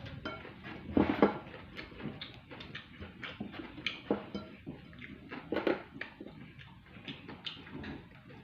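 Cutlery clinking and scraping on a plate with close-up chewing and mouth sounds of eating, as irregular short taps, the loudest a cluster about a second in and another past the middle.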